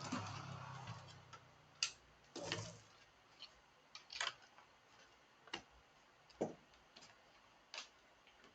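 Scattered light clicks and knocks of small hard objects being handled, about a dozen spread unevenly, with a low hum in the first second.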